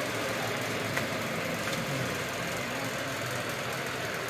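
Steady engine and street traffic noise, with a low hum like a vehicle idling.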